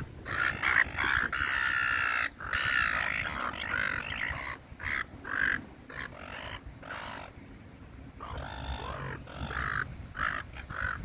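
A flock of seagulls squawking: many short, harsh calls overlapping, thickest in the first few seconds and thinning out near the middle.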